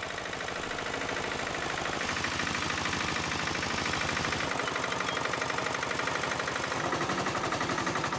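Royal Enfield single-cylinder motorcycle engine running steadily in a rapid, even beat, powering a motorcycle converted into a tractor that is pulling a plough.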